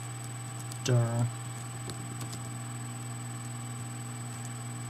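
Steady electrical mains hum, with a few faint clicks of computer keyboard keys being typed slowly. A short voiced sound comes about a second in.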